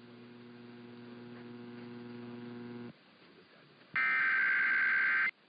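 A steady electrical hum grows louder, then cuts off about three seconds in. About a second later comes a loud, harsh burst of Emergency Alert System SAME header data tones lasting roughly a second and a half. It is the digital header that opens an EAS alert.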